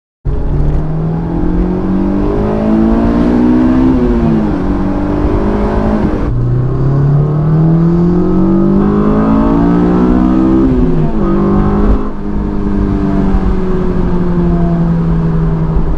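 Honda S2000's four-cylinder engine breathing through an aFe Takeda intake, pulling up through the revs with a rising pitch, dropping sharply on upshifts about four seconds in and again near eleven seconds, then running steadily.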